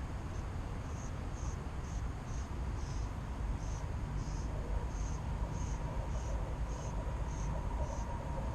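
Insect chirping: a short, high chirp repeated about twice a second over a steady low rumble of outdoor noise.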